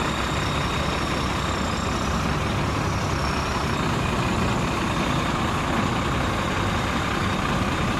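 WWII-era US Army heavy truck's engine running steadily as the truck rolls slowly past.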